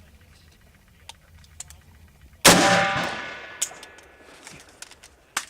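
A single rifle shot about halfway through, followed by a metallic ringing that fades over about a second.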